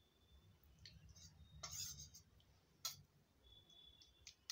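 Metal spoon clicking and scraping against a stainless steel bowl while scooping out food: a few faint separate clicks and one short scrape.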